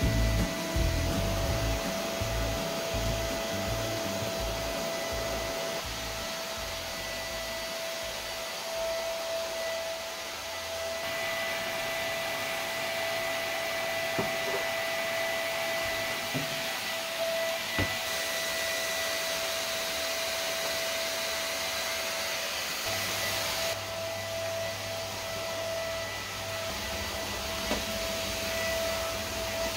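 Cordless stick vacuum cleaner running steadily: a motor whir with a constant high whine over the hiss of the airflow, its hiss changing abruptly a few times.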